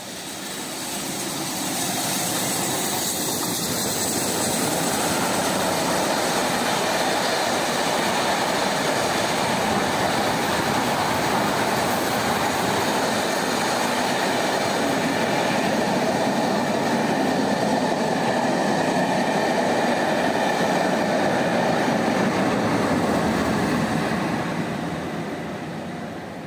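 A train hauled by the steam locomotive BR Standard Class 7 70000 Britannia passing close by: a loud, steady rush of wheel-on-rail noise with some clickety-clack from the coaches. It builds over the first two seconds as the engine comes by, and fades near the end as the last of the train goes past.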